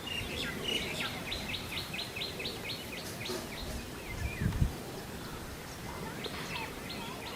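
Kingfisher calling: a fast run of short high notes, about six a second, lasting about a second and a half, then a few scattered calls near the end. A brief low thump about four and a half seconds in.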